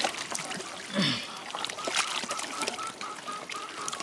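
Gloved hands squelching and splashing through mashed boiled soybeans and their cooking water in a large plastic basin, kneading the mix for doenjang. From about halfway, a short high chirp repeats about three times a second.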